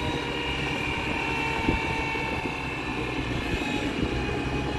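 Tractor engine running steadily as it pulls a planter in a field demonstration, with a steady high whine over the engine hum.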